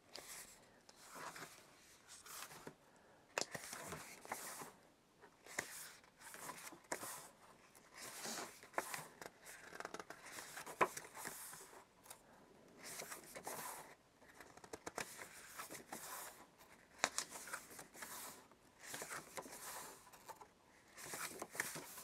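Pages of a paper booklet being turned one after another, a faint papery rustle and flick about once a second.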